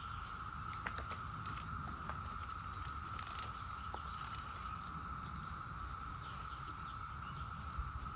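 Cicadas singing in chorus: a steady, unbroken drone, with a few light ticks and taps scattered over it.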